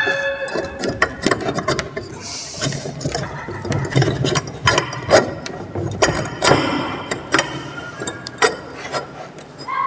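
Steel machine parts being handled and fitted together: a steel shaft and roller being pushed into a steel frame, with irregular metallic clicks and knocks and a short scrape about two seconds in.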